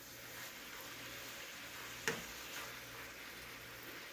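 A meat chopper working ground beef in a stainless steel skillet: one sharp knock of the tool against the pan about two seconds in, and a lighter one soon after, over a faint steady hiss.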